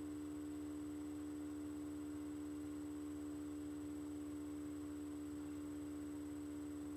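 A steady hum made of several constant tones, one low and others higher, over a faint hiss, unchanging throughout.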